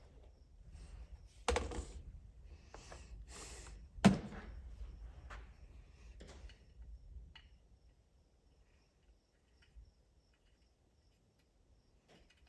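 Hand tools being handled on a workbench: rustling and a few sharp knocks and clinks, the loudest about four seconds in. After about seven seconds it falls nearly quiet.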